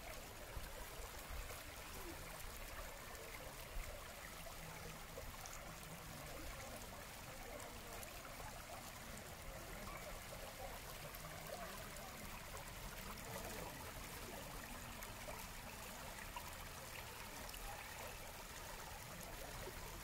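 Shallow rocky stream running over and between stones: a steady trickle.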